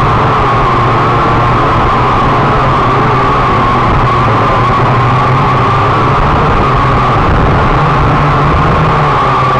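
A drone's electric motors and propellers running with a steady, loud buzzing whine, heard close up through its onboard camera's microphone; the pitch wavers slightly as it manoeuvres.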